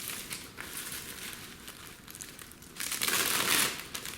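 Plastic packaging crinkling and rustling as a small accessory is handled and unwrapped, with a louder stretch of rustling about three seconds in.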